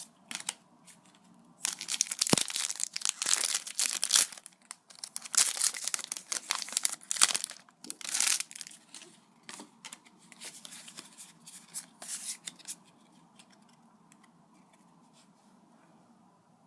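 A Pokémon booster pack's foil wrapper being torn open and crinkled, in a run of tearing and rustling bursts that starts about two seconds in and stops about thirteen seconds in.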